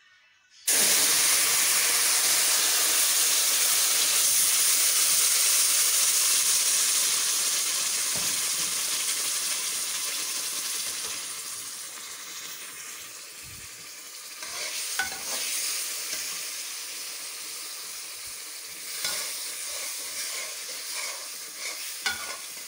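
Hot sugar syrup poured onto semolina roasted in oil in a metal pan: a sudden loud sizzle and hiss about a second in that slowly dies down over ten seconds or so. Then a slotted spatula stirs the mixture, scraping and clicking on the pan over a softer sizzle.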